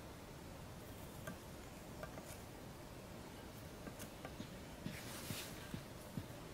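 Faint handling sounds as a string and a thin wooden stick are set over a hole: scattered light clicks and ticks, with a short rustle about five seconds in.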